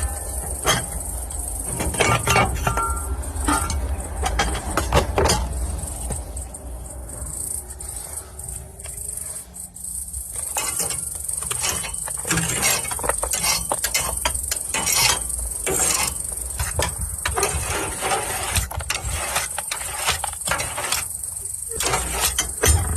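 Irregular scraping and clinking of a tool working ash out of the firebox of a wood-fired bath stove. Insects shrill steadily behind it.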